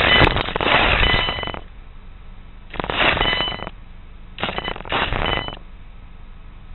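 Radio-controlled buggy running in three noisy bursts of about a second each, heard from a camera mounted on the car, with a faint high whine in each burst.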